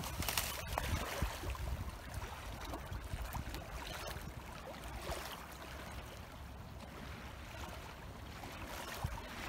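Small wind-driven waves lapping and splashing at a lake shore, with wind buffeting the microphone that eases off after the first couple of seconds.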